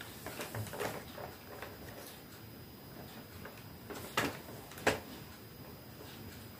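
Faint rustling and light clicks of advent calendar boxes and small toys being handled and opened, with two sharper clicks about four and five seconds in.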